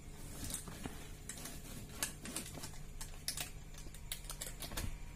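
Cardboard phone box being handled, a quick irregular run of light clicks, taps and scrapes as the box is tilted and its inner tray worked out of the sleeve.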